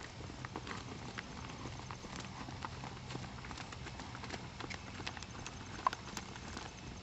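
Saddled horse trotting on a lunge line, its hooves beating on the loose dirt of the arena in an irregular run of soft clicks. A sharper, louder click comes about six seconds in.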